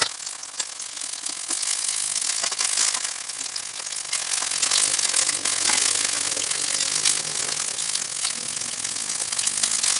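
Beaten egg frying in hot oil in a wok: a dense crackling sizzle that grows louder about a second in and then holds steady.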